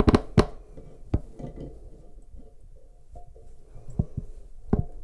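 Scattered sharp clicks and knocks of a chrome metal bidet T-valve adapter being handled and fitted up under a toilet tank, the loudest about half a second in.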